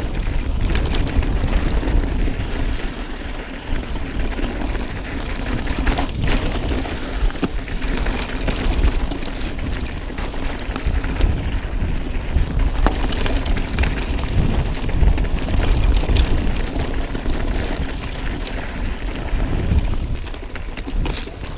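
Wind buffeting a GoPro's microphone as a mountain bike rolls over a rough dirt and rock trail, a steady heavy rumble with scattered sharp clicks and rattles from the bike.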